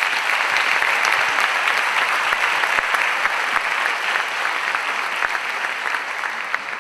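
Audience applauding with dense clapping that slowly dies away near the end.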